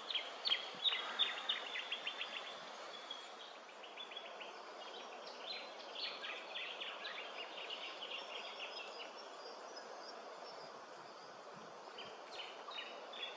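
Bush ambience with runs of rapid, high-pitched chirping, strongest in the first few seconds and again around the middle, over a faint steady background hiss.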